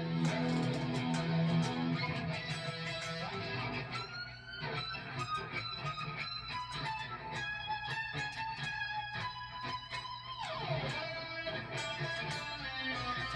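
Electric guitar played through a Tonex Original amp-modelling pedal into Marshall guitar cabinets. It starts with low chords, then moves to held lead notes, with a note bent upward about four seconds in and a note sliding down near the end.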